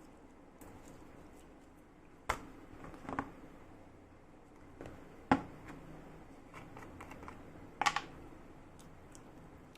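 Slime and its containers being handled, giving scattered sharp clicks and taps: four louder ones about two, three, five and eight seconds in, with fainter ticks between.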